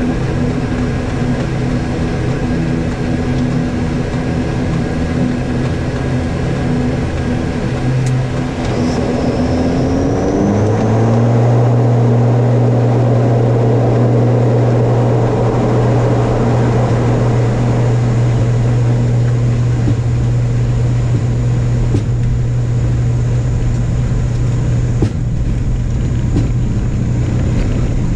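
An ATR 72's turboprop engines and propellers drone inside the cockpit as a loud, steady low hum. About ten seconds in, the pitch glides up and the drone settles louder and steadier as engine power is brought up for the takeoff.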